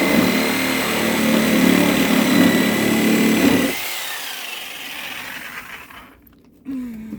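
Electric power cutting tool running under load as it cuts through the Power Wheels toy, with a steady high whine; a little under four seconds in it is switched off and the whine falls as it spins down.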